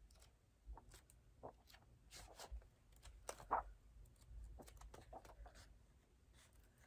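Pages of a large art book being turned by hand: several faint paper rustles and swishes, a little stronger about halfway through.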